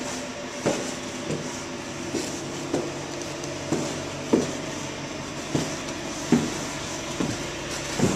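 Footsteps of people walking down a staircase and along a hallway, a dull thud roughly every 0.7 s, over a faint steady hum.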